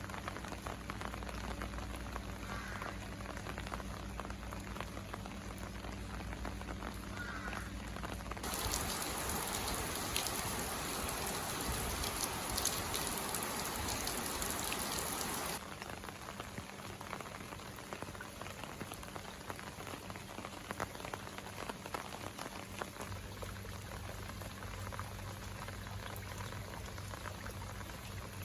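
Steady rain falling and pattering on surfaces, with a faint low hum underneath. About eight seconds in it turns louder and hissier for about seven seconds, then drops back suddenly to the lighter patter.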